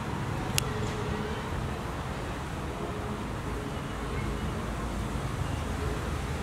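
Steady outdoor street ambience: a low, even rumble of traffic, with one sharp click about half a second in.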